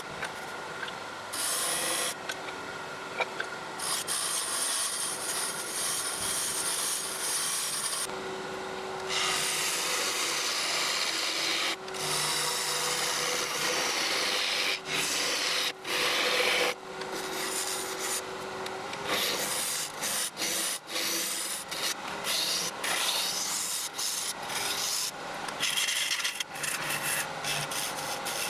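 A tool working spinning yew on a wood lathe, giving a steady rasping hiss of tool against wood. The hiss breaks off and resumes many times, most often in the second half.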